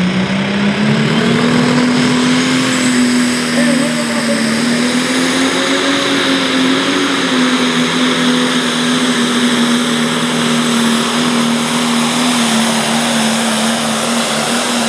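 Pro Stock pulling tractor's diesel engine at full power on a pull, loud and steady. Its pitch climbs about a second in, then holds at high revs.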